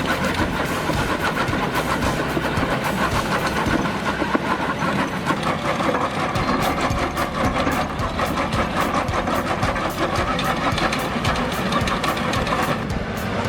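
Engine of a wood-cutting machine running steadily, with rapid sharp knocks and clicks coming thick from about halfway through.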